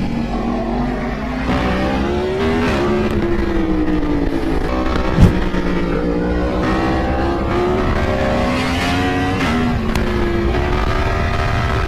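Motorcycle engine pulling hard through the gears: its pitch climbs, then drops back at each upshift, several times over. One sharp click about five seconds in.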